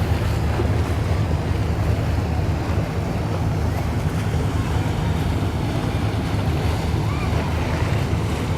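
Steady wind buffeting the microphone aboard a moving boat, a continuous low rumble over the rush of water along the hull.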